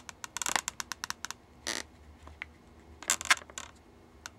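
Black marker tip drawing small circles on an inflated latex balloon: short scratchy ticks and rubs, bunched about half a second in and again around three seconds in, with one longer rub near the middle.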